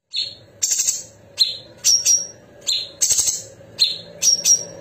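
A cucak cungkok, a caged leafbird, singing: a repeating phrase of sharp high notes, a buzzy rasping rattle and a pair of short high whistles, heard twice. This is the sharp, rapid 'besetan' material valued in birds trained for song contests.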